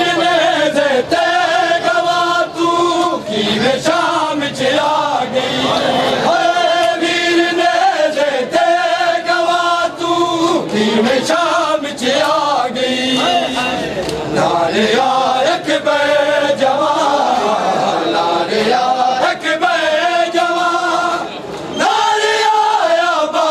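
A group of men chanting a nauha, a Shia mourning lament, in unison: long sung phrases with held notes and short breaks between them.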